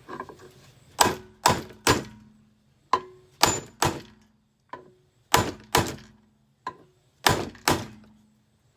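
A hammer striking a commercial vacuum cleaner, about a dozen heavy blows in quick groups of two or three, the stronger ones leaving a short low ring from the machine's body.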